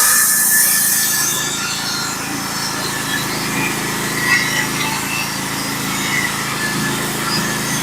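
Portable band sawmill's engine running steadily as the blade cuts through a log, with a high hiss that dies away in the first second or so. The wood cuts so easily that it barely loads the band, so the engine note holds even.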